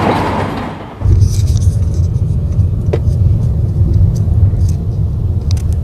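Low, steady rumble of a car driving, heard from inside the cabin, starting abruptly about a second in, with a few faint clicks over it. Before that, a softer hiss fades away.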